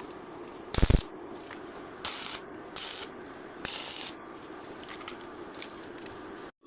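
Workshop handling noises over a steady hum: a sharp knock about a second in, then several short scraping strokes.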